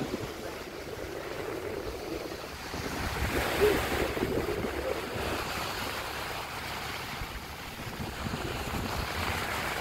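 Sea water rushing along the side of a moving ship as it cuts through the sea, with wind blowing on the microphone.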